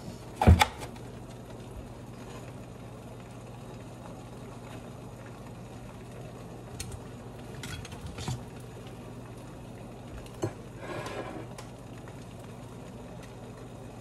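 Eggs frying in a skillet with a faint steady sizzle over a low hum. About half a second in comes one sharp, loud knock, with a few lighter clicks and knocks around eight and ten seconds in.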